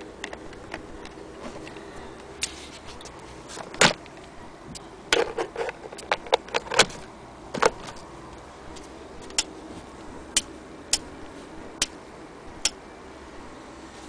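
Scattered sharp clicks and knocks of hard objects being handled, loudest about four seconds in, with a quick run of several between five and seven seconds and single clicks after, over a faint steady hum.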